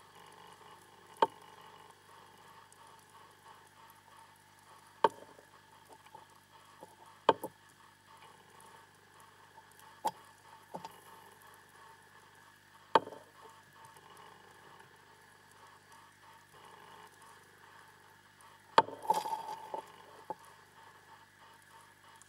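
Sharp knocks on an underwater camera rig as haddock feed at the end of its pole: single loud knocks every few seconds, then a quick rattling cluster near the end, over the camera's steady electronic hum.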